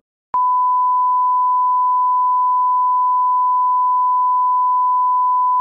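Test-pattern tone of TV colour bars: one loud, steady, unbroken beep at a single pitch, starting about a third of a second in.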